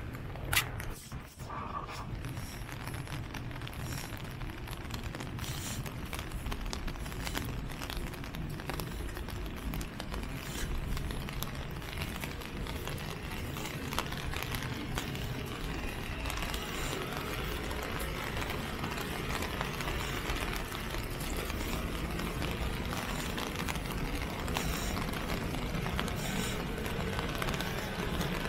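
Steady rain falling on a wet city street, with a low hum of traffic underneath. A single sharp click about half a second in.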